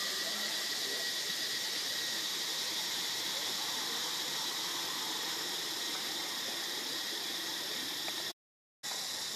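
Steady, high insect chorus droning without a break. The sound cuts out completely for about half a second near the end.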